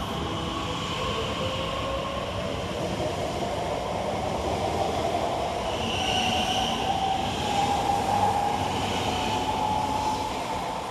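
Class 345 Aventra electric multiple unit pulling away from a station stop, its traction motor whine rising steadily in pitch as it gains speed. A short high squeal comes in about six seconds in, and the sound peaks near the end before fading as the train draws off.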